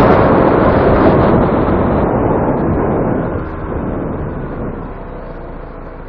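Heavy wind noise buffeting an EKEN H9R action camera's built-in microphone on a moving scooter, fading steadily over the second half as the scooter slows toward a crossing. A faint steady hum from the scooter's engine is left underneath once the wind dies down.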